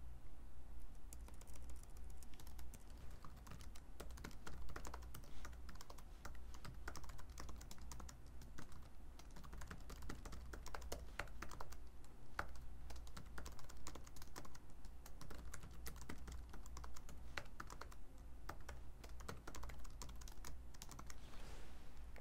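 Typing on a computer keyboard, a quick irregular run of key clicks, over a low steady hum.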